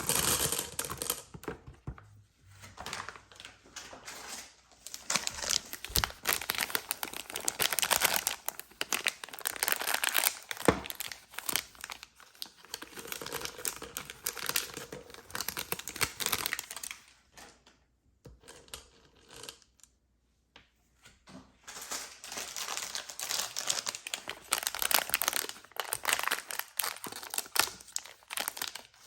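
Plastic candy and chocolate wrappers crinkling and tearing as packages are opened, in a run of dense crackles with a pause of a few seconds about two-thirds through.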